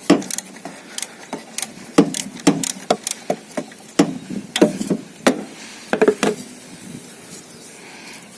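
Socket wrench clicking and knocking on metal as the alternator belt tensioner bolt is loosened. It gives irregular sharp clicks, about two a second, which stop about six and a half seconds in.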